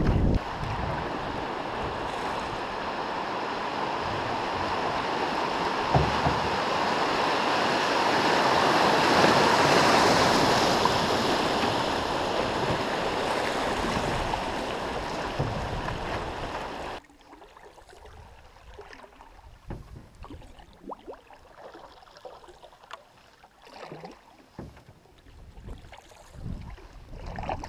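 Fast river water rushing over a shallow riffle around a canoe, a steady rushing hiss that swells loudest in the middle. About two-thirds of the way in it cuts off suddenly to quiet, slow water with scattered small knocks and splashes of paddling.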